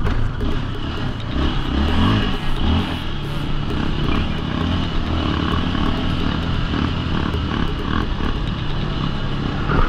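ATV engine running steadily at riding speed, heard from the rider's own quad, with wind rumble on the microphone.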